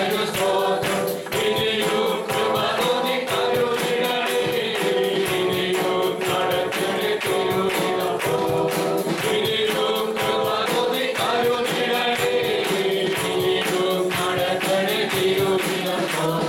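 A group of voices singing a worship song together, with a steady percussion beat.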